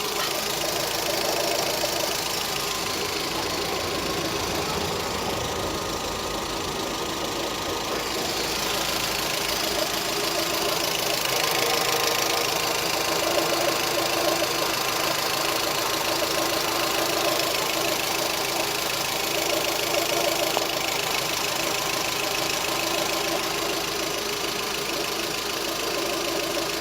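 A 2014 Volkswagen Voyage's engine running steadily with a strange noise that the owner cannot identify, heard throughout and most clearly about thirteen seconds in.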